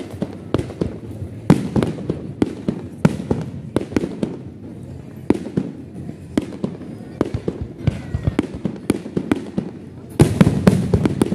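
Fireworks display: a steady run of sharp cracks and pops, then a louder, denser volley of bangs about ten seconds in as a large aerial shell bursts.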